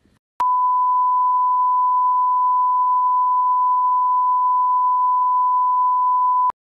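Test-pattern tone edited in over TV colour bars: one steady, loud, high beep at a single pitch, starting with a click about half a second in and cutting off abruptly just before the end.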